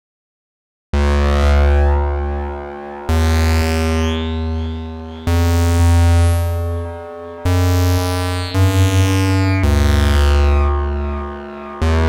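Synthesizer playing a slow run of bass-heavy sustained notes, starting about a second in, with a new note about every two seconds; each note starts bright and its filter closes down, and one near the middle wobbles quickly.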